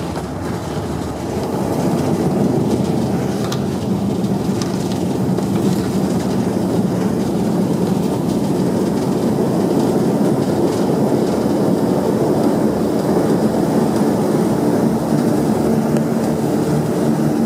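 Cabin noise of a Saab 2000 turboprop airliner during its landing roll: a steady rumble from the wheels on the runway with the propellers' low hum beneath it. The hum's tones come out more clearly near the end as the aircraft slows.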